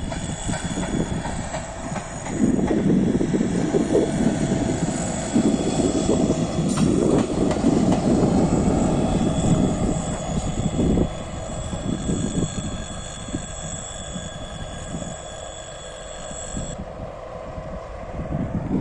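Rail vehicle running on the track: the wheels rumble on the rails, rising and falling in loudness. A steady high whine runs along with it and cuts off abruptly near the end.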